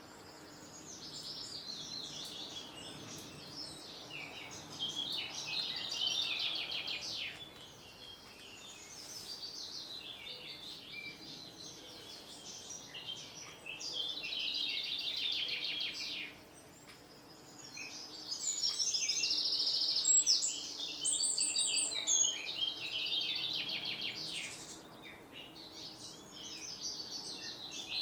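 Several songbirds singing at once, an overlapping chorus of chirps, warbles and fast trills with almost no gaps.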